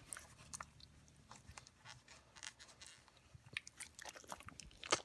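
Faint, irregular clicks and crunchy scrapes of a metal hand scaler working tartar off a dog's teeth, with a louder click near the end.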